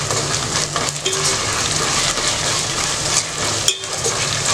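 Sliced onions, green chillies and whole spices sizzling in hot oil and ghee in a steel pot, stirred with a steel ladle. There is a brief break near the end.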